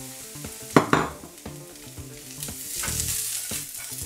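Vegetables frying in a non-stick pan as zucchini sticks are tipped in on top of onions and carrots and stirred with a spatula: a sizzling hiss, two sharp knocks about a second in, and the sizzle growing louder near the end as the zucchini is tossed.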